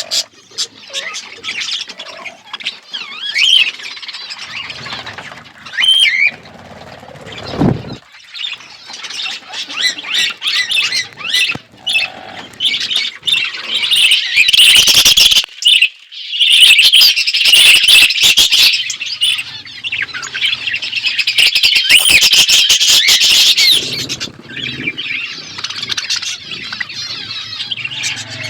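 A flock of budgerigars chattering and warbling, many fast chirps and squawks overlapping, growing busier and louder past the middle. Brief clicks come through in the middle of the stretch.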